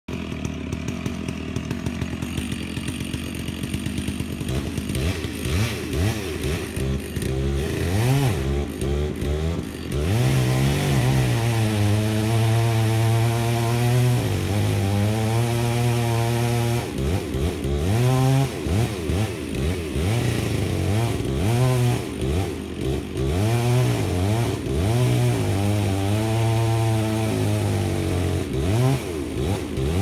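Chainsaw cutting into a standing tree for a directional felling cut, its engine speed rising and falling over and over as it bites and clears in the wood. A John Deere compact track loader's engine runs alongside.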